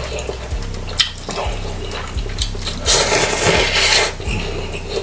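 A person slurping instant noodle soup: a loud slurp about three seconds in, lasting around a second, after a run of small clicks from a fork against the noodle cup and chewing.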